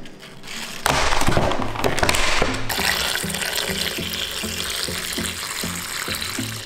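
About a second in, a stretch of crisp crackling, then tap water pouring steadily into a glass bowl of whole tomatoes, onion and cilantro as they are rinsed. Acoustic guitar music plays softly underneath.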